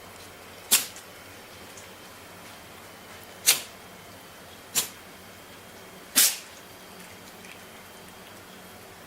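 Miniature pinscher sneezing: four short, sharp sneezes over about six seconds, the last three coming in quicker succession.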